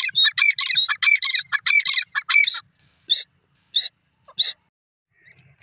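Grey francolin calling: a fast run of loud, high-pitched notes, about five a second, then three single calls spaced further apart before it stops a little past the middle.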